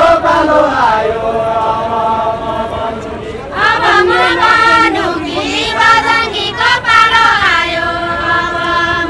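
A group of voices chanting a deuda folk song in unison, holding long notes. A louder set of voices takes up the line about three and a half seconds in.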